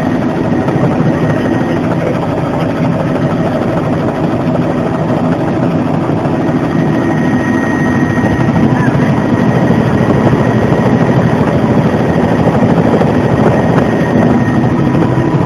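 Bell 206 JetRanger helicopter in flight, heard from inside the cabin: the turboshaft engine and rotor make a loud, steady drone with a faint thin whine over it.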